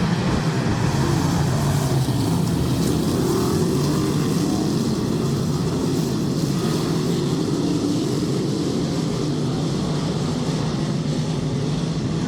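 Dirt track race cars running laps on the oval, a steady engine drone from the field of cars.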